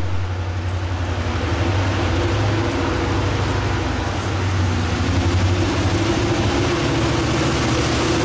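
Approaching Norfolk Southern diesel-electric freight locomotives, engines running with a steady low drone that grows slightly louder about two seconds in.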